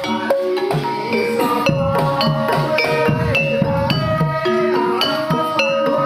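Javanese gamelan music accompanying a kuda lumping dance: quick, busy runs of struck metallophone notes that ring on, over a steady low drum beat.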